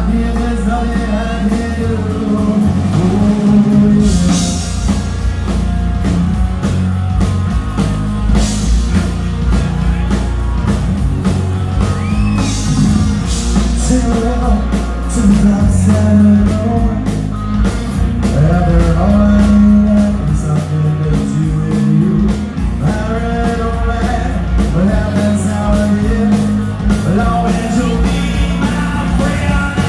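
Live rock band playing amplified over a PA: electric guitar, bass and drums, with singing at times.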